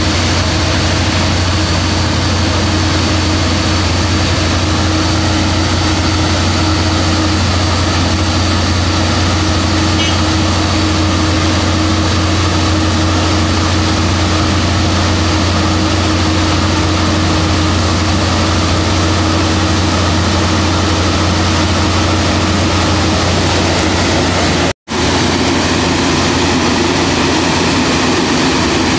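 Diesel engine of a PBR-400U-RS ballast regulator running steadily with a deep hum, the machine working slowly along the track. The sound cuts out for an instant near the end, and after that the machine sounds closer.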